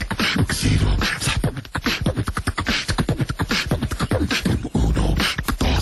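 Rapid rhythmic vocal sounds like beatboxing: a fast, unbroken string of short pitched mouth noises over heavy low thumps.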